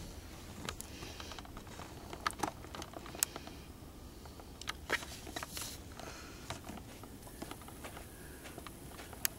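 Scattered light clicks and taps of hands handling a small plastic object, irregular, with the sharpest clicks about two, three, five and nine seconds in.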